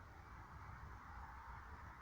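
Near silence: a faint steady hiss with a low rumble underneath, no distinct sounds.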